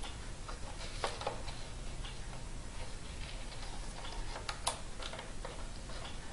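Faint, scattered small plastic clicks and ticks as fingers work a laptop keyboard's ribbon cable into its board connector, the clearest about a second in and around four and a half seconds in, over a steady low hum.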